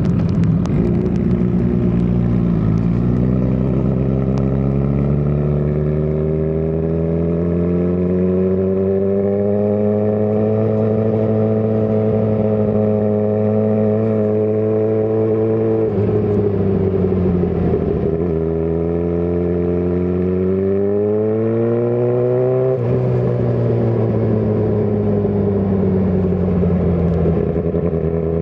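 Suzuki GSX-R1000R's inline-four engine running under way. Its pitch climbs slowly over the first several seconds and holds, dips sharply twice about midway, rises again and then drops back to a lower, steady note.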